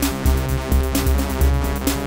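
Electronic music with a steady beat: deep bass pulses under sustained synth tones, with sharp percussion hits at regular intervals.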